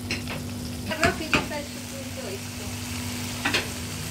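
Chicken frying in a pan, sizzling steadily, with a few sharp knocks of a utensil against the pan: two close together a little after a second in and one more at about three and a half seconds.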